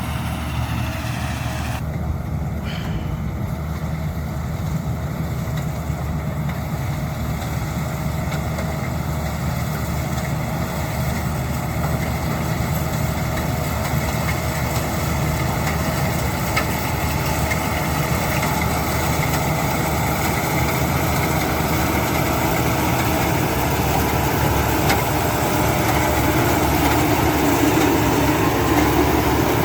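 Rice combine harvester's engine running steadily, growing gradually louder toward the end.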